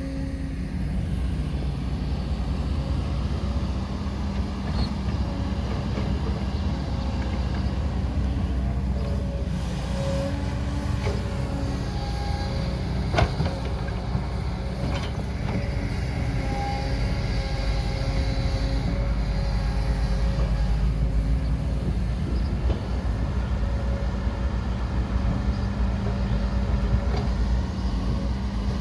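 Excavator at work, its motor running with a steady low hum and faint whining tones above it. There is one sharp click about halfway through.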